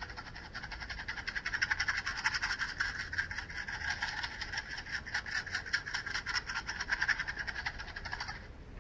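A box of matches being shaken close to the ears in a holophonic (3D binaural) recording, a fast dry rattle of matchsticks that stops suddenly near the end.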